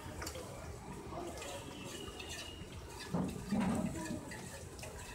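Water sloshing and swirling in a large aluminium pot as a long metal ladle stirs rice through it, with a brief louder low sound about three seconds in.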